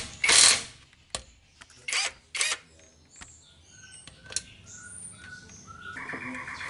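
Socket wrench with a 6 mm hex bit working the transfer case plug of a Suzuki Jimny Katana: short, loud spells of ratcheting with sharp metal clicks of the tool between them. A faint steady tone comes in near the end.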